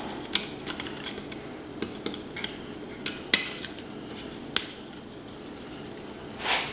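Light metallic clicks and clinks of a Torx screwdriver and small screws being worked out of a boiler pump's casing, with two sharper clicks midway. A brief rushing noise near the end.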